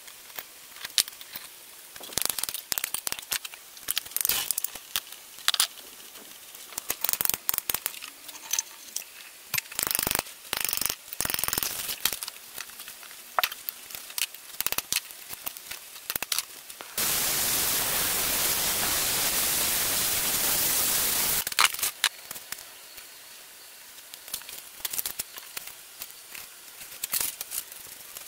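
Handling sounds from stripping a three-phase sewage pump: a spanner clinking and scraping on its metal parts, then the old burnt copper windings crackling and tearing as they are pulled from the stator housing. A steady hiss runs for about four seconds past the middle, followed by sparser clicks.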